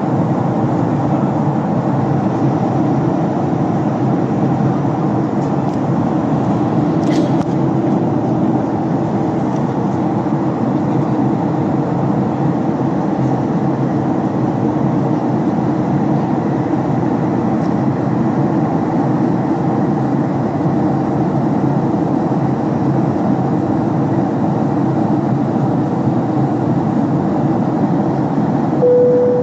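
Steady roar of engine and airflow noise inside the cabin of a Boeing 767-300 airliner, with a faint click about seven seconds in and a short steady tone just before the end.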